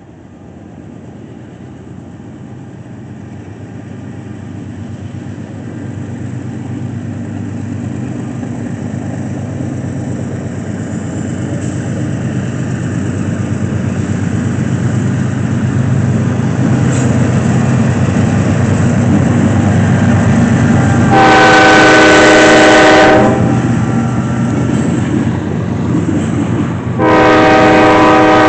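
CSX GE C40-8W (Dash 8-40CW) diesel locomotives with their 16-cylinder engines pulling a freight train toward and past the listener, the low engine rumble growing steadily louder. About three quarters of the way in the lead locomotive's multi-chime air horn sounds one blast of about two seconds, and a second blast starts near the end as the freight cars roll by.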